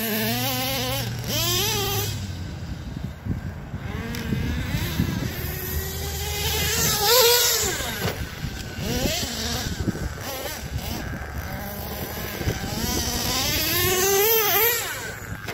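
Redcat Earthquake 3.5's small 3.5 cc nitro engine revving hard and dropping back, over and over, in high rising and falling whines as the RC truck is driven; the loudest revs come about a second in, about halfway, and near the end.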